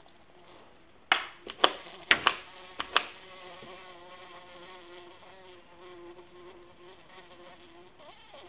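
Bumblebee buzzing steadily, with a quick run of about six sharp knocks or snaps between one and three seconds in.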